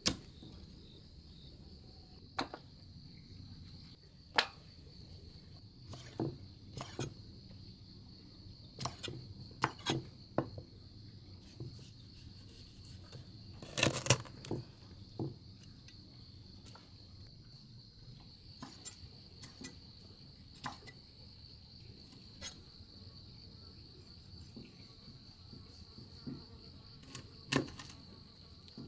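Insects chirring steadily in one high, even band, with scattered sharp knocks and clicks of handling. The knocks are loudest in a cluster around the middle.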